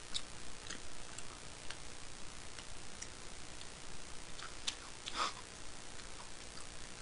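Faint, irregular small clicks and taps of eating with wooden chopsticks from plastic takeout trays, with light mouth sounds, one click a little louder about five seconds in.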